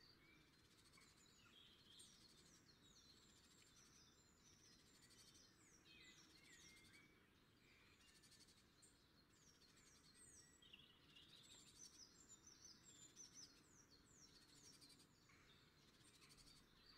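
Near silence with faint songbirds chirping in short, falling notes, busiest in the middle and latter part.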